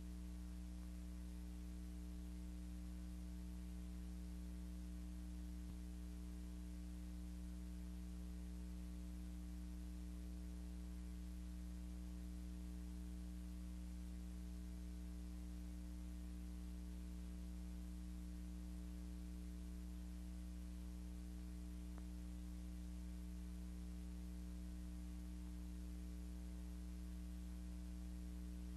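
Steady electrical mains hum with a faint hiss, unchanging throughout: the background noise of an otherwise silent soundtrack.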